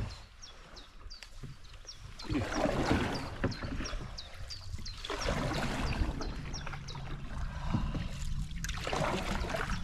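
Wooden canoe paddle taking strokes through the river water, a swishing splash swelling about every three seconds.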